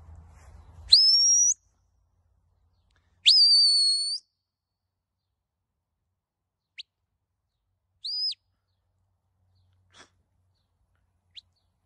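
Sheepdog handler's whistle commands to a working herding dog: a rising, held whistle about a second in, a longer whistle a couple of seconds later, then a few short high chirps.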